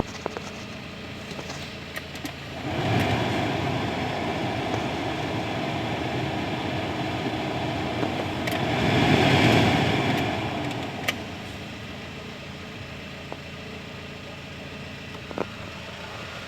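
Peugeot 206 running: a steady mechanical noise that grows louder about three seconds in, swells again near the middle, then drops back to a lower steady level after about eleven seconds, with a few faint clicks.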